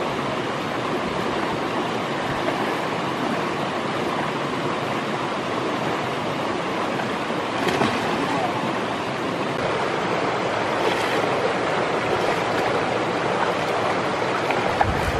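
Steady rush of a shallow rocky stream flowing over stones, an even hiss with no let-up, briefly louder about eight seconds in.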